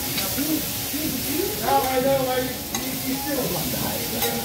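Food sizzling on a hot teppanyaki griddle, with a couple of sharp metal clicks, and people talking in the background.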